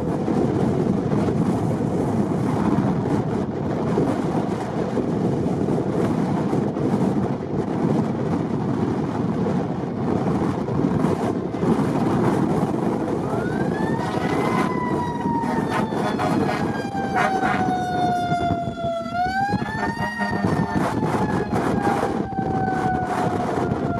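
Strong wind buffeting the microphone throughout. About halfway through, a fire engine's siren comes in with a slow wail, rising, falling gradually, rising again and falling.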